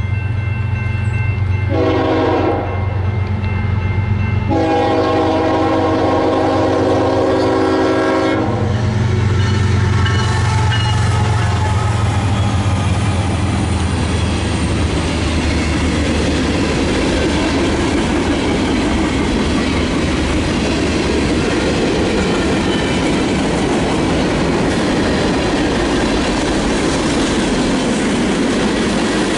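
Union Pacific diesel locomotives pass under a low engine drone and sound the horn, a short blast and then a long one. Once they are by, the freight cars roll past with steady wheel noise and clickety-clack, and there is a faint, falling wheel squeal a few seconds later.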